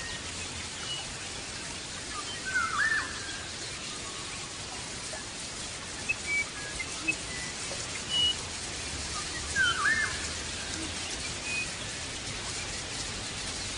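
European goldfinch giving scattered short chirps and twice a looping, sliding note, over a steady hiss.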